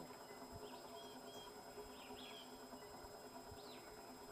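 FASCO ceiling fan's large spinner motor running on medium speed with a faint, even hum. Small birds chirp faintly a few times in the background.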